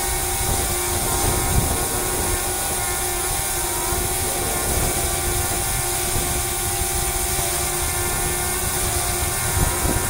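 DJI Spark quadcopter hovering in place: the steady, multi-toned whine of its four propellers, with light wind rumbling on the microphone.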